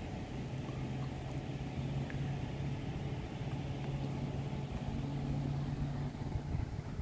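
Truck engine idling, a steady low hum.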